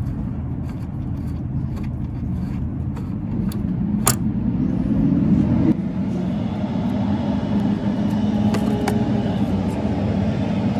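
Heavy municipal collection truck's engine running nearby: a steady rumble that climbs in pitch about four seconds in, drops back abruptly near six seconds and then holds. A sharp click about four seconds in.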